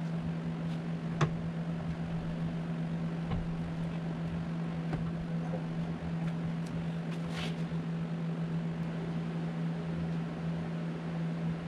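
A steady low hum, with a few light clicks and knocks as an aluminium radiator is shifted and eased into place in a car's engine bay; the sharpest click comes about a second in.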